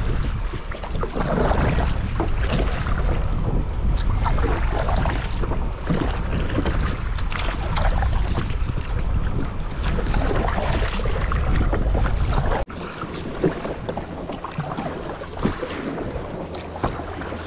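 Wind noise rumbling on a GoPro's microphone in its waterproof housing, with water splashing and slapping around a sea kayak on choppy water. About two-thirds of the way through, the sound cuts abruptly to a quieter stretch with less wind.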